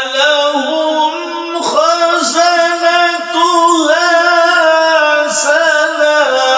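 A man's voice chanting Quranic recitation in slow, melodic tarteel style: long held notes that glide and ornament between pitches, with a fresh phrase starting a couple of times.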